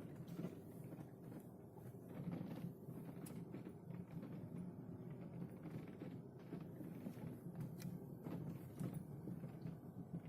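Inside a Toyota Isis cabin: a steady low rumble with scattered faint clicks and creaks from the door weather-seal rubbers, just lubricated with silicone grease to stop their squeaking.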